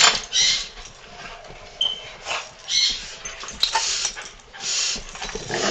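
A dog reverse sneezing: a run of short, harsh breaths in quick succession, with brief pauses between them.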